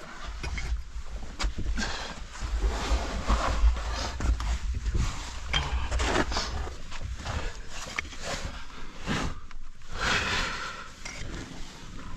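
Scraping and rustling of a caver crawling through a tight rock passage, with irregular scuffs and knocks close to the microphone.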